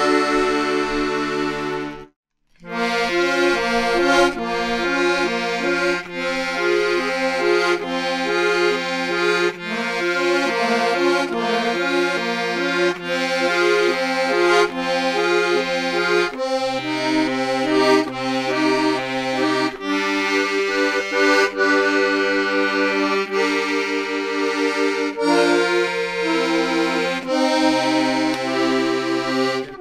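Accordion music: a quick melody over held bass notes that change a few times, with a short break about two seconds in.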